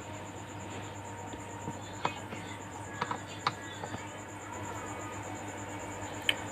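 Plastic trim cover under a Toyota Kijang Kapsul's steering wheel being pried open: a handful of sharp clicks and knocks over a steady background hum.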